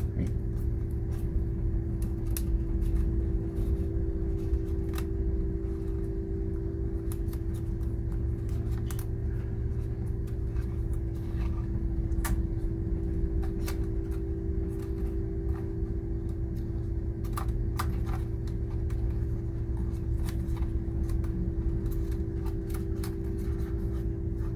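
Light plastic clicks and taps, scattered irregularly, as the DJI Mini 2 SE drone's folding arms and propellers are handled. Under them runs a steady low hum.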